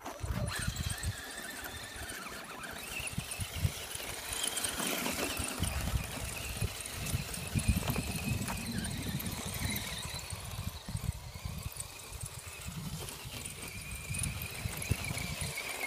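Electric drivetrain of an Axial SCX10 Deadbolt 1/10-scale RC crawler whining steadily as it drives over snow and ice, with an uneven low rumble underneath.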